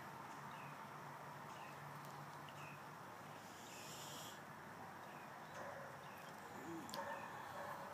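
Quiet background noise with a faint steady hum and a short falling chirp repeating about once a second, likely a small animal; a brief rustle about four seconds in and a sharp click near the end.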